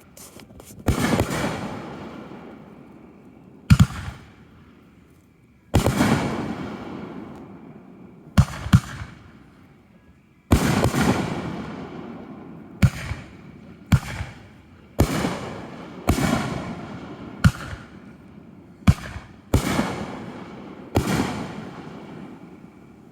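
Fireworks exploding: about a dozen sharp bangs a second or two apart, some in quick pairs, each trailing off in a long, fading rumble.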